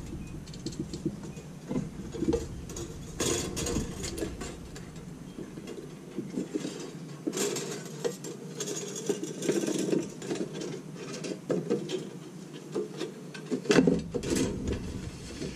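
Nichrome wire being threaded through the metal frame of an icemaker's ice-cutter grid: irregular light scraping, rubbing and clicking of wire and hands against metal.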